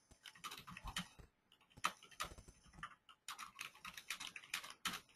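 Computer keyboard typing: a faint, irregular run of quick key clicks with a couple of short pauses.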